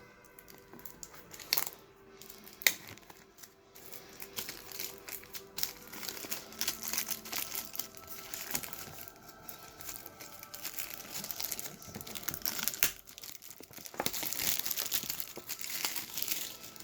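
Plastic trading-card wrapping being torn open and crinkled by hand, with a couple of sharp clicks at the start, then steady crackling that gets loudest near the end.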